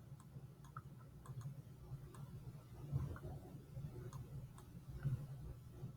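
Faint, scattered ticks and clicks of handwriting, a few each second, over a low steady hum.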